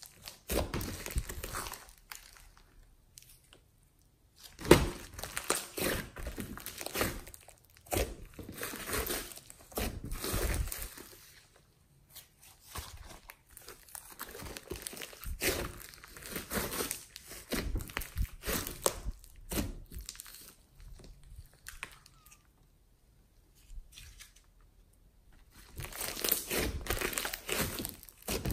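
Hands kneading, pressing and folding a large lump of glossy slime mixed with clay: sticky squishing and crackling as it is squeezed and pulled apart, in irregular bursts with a few short pauses.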